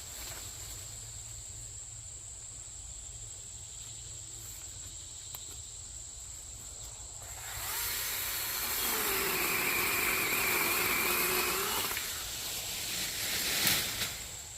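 Small two-stroke chainsaw engine run up to a steady high-speed whine about halfway through, held for about four seconds, then let back down. A thin steady high insect drone runs underneath.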